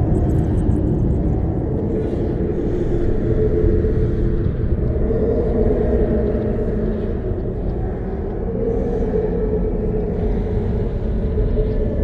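Eerie cave ambience sound effect: a steady low rumble with a hollow drone that swells and fades every few seconds.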